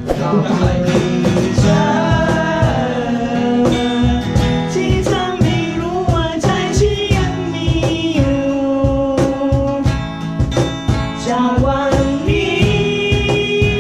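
A song with a singing voice over guitar and a steady drum beat.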